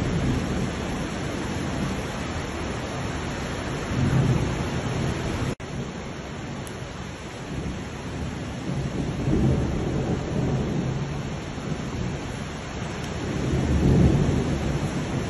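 Floodwater rushing through a street as a torrent: a steady, noisy roar with heavier low rumbling swells every few seconds. The sound cuts out for an instant about five and a half seconds in.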